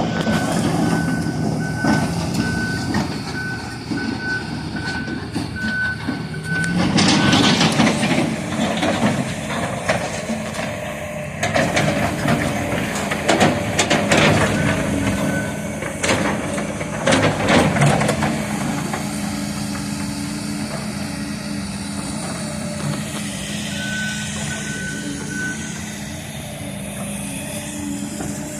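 Excavator engines working under load, with a travel alarm beeping steadily through the first quarter and briefly again near the end. Loud crackling, crashing bursts come and go in the middle stretch as the large tree is pushed over.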